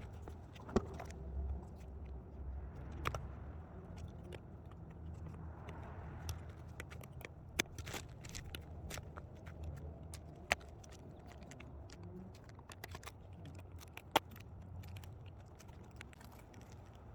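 Bent metal hardware of a mangled rail joint being handled and worked loose: scattered light clicks and clinks, a handful of them sharper, over a faint low rumble.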